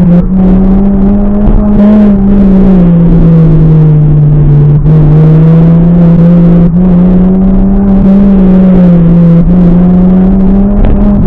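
Mini Cooper S's four-cylinder engine running under hard driving, a loud, steady engine note whose pitch rises and falls gently with the throttle.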